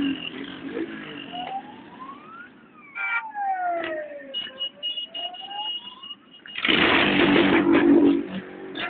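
A siren wails, its pitch sweeping slowly up, down and up again, with a short horn-like toot about three seconds in. About two-thirds of the way in, a motorcycle passes close by, its engine loud for about a second and a half.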